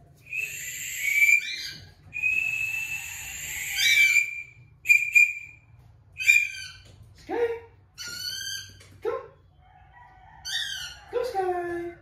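Cockatiel contact calls, a string of short, rising, shrill chirps repeated every second or so. In the first four seconds there are two longer breathy whistles.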